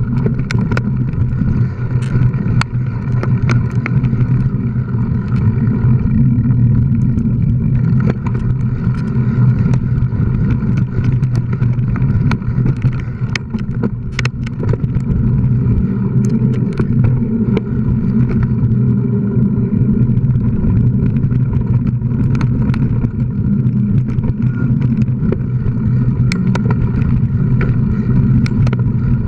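Riding a mountain bike fast along a rough dirt singletrack: a steady loud rumble, with frequent sharp clicks and rattles as the bike and its mounted camera jolt over bumps.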